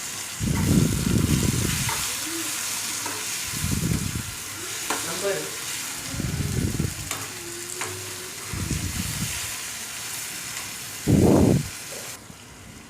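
Onions and tomatoes sizzling in hot oil and ghee in a kadai, stirred with a spoon in strokes every two to three seconds. The sizzle drops away near the end.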